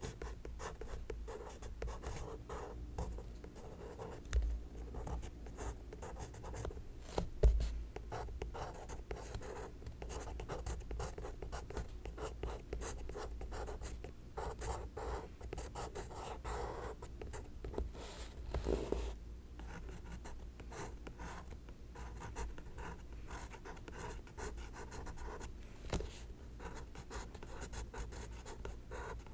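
Soft 5B graphite pencil (Staedtler Mars Lumograph) scratching across sketchbook paper in steady handwriting strokes. A couple of brief thumps stand out, the loudest about seven seconds in.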